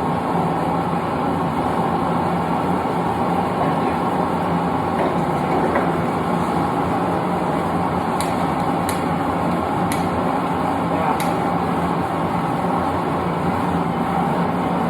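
Propane forge burner running, a steady rushing noise, with four faint light clicks in the second half.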